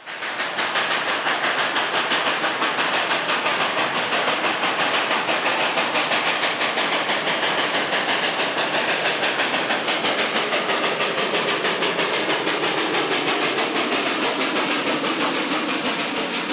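Western Maryland 2-8-0 steam locomotive No. 734 working under load with a freight train, its exhaust chuffing in a rapid, even beat of about four to five a second.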